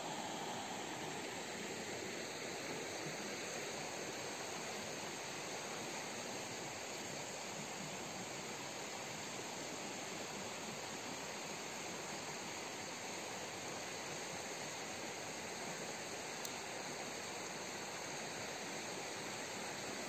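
A creek's water flowing in a steady, even rush.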